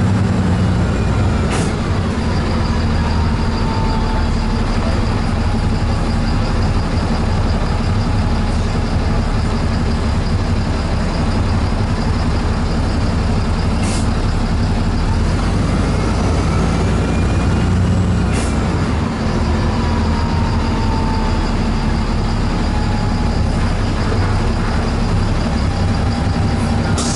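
Steady running noise inside a moving city bus: drivetrain hum and road noise, with a whine that twice rises and falls in pitch as it pulls away and slows, and a few sharp clicks or knocks.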